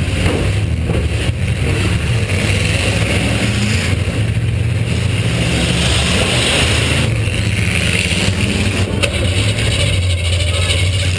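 Demolition derby car's V8 engine running loud and steady.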